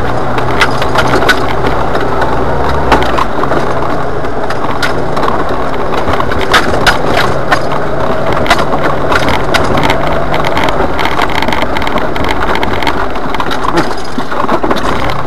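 Jeep Wrangler rolling along a rough dirt and gravel trail, heard from inside the cab: a steady rumble with frequent knocks and rattles as it jolts over bumps.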